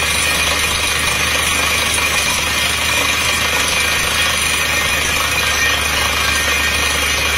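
PDTHR 200 truck-mounted water well drilling rig drilling with its down-the-hole air hammer: a steady, dense hammering racket over the running engine and compressor, with compressed air blowing the cuttings out of the borehole.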